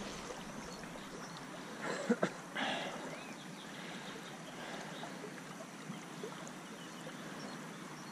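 Steady rush of flowing river water around the waders, with a few brief knocks and a short rustle about two seconds in.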